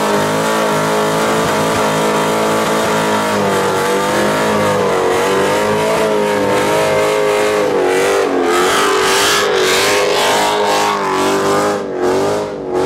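Muscle car engine held at high revs in a burnout, the revs wavering up and down while the rear tyres spin and squeal; the tyre hiss grows stronger in the second half.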